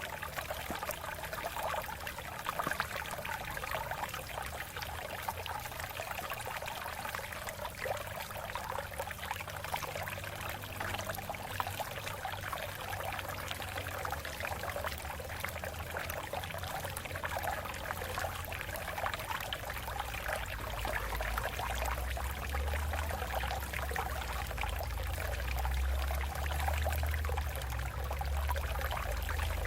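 Water flowing and splashing over rocks in a stream, a steady trickling rush. A low rumble underneath grows louder about two-thirds of the way through.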